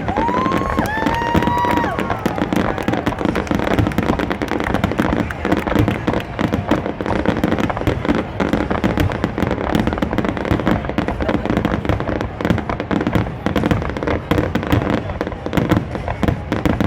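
Aerial fireworks in a rapid, continuous barrage: many shell bursts and reports overlapping with no let-up. A brief whistle rises and holds for about a second near the start.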